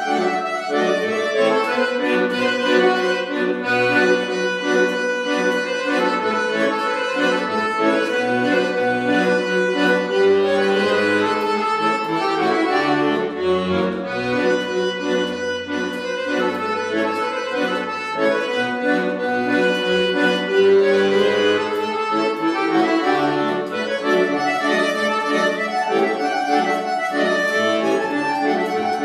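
Solo piano accordion playing a continuous tune with quick runs of notes over chords, the bellows drawn open and pushed closed. Low bass notes sound underneath through the middle stretch.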